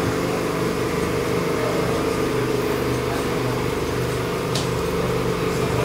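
Steady machine-like hum with several held low tones, with a short hiss about four and a half seconds in.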